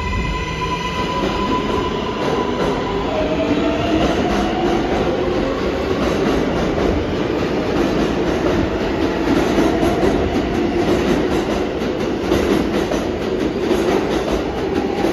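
A New York City Subway R142-family train pulling out of the station and gathering speed. Its traction motors give a whine that rises in pitch over a steady rumble, and the wheels clatter more and more on the rails as it speeds up.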